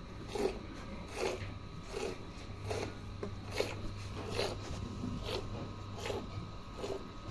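A cow being milked by hand: rhythmic squirts of milk streaming into a pail, a short rasping squirt a little more than once a second.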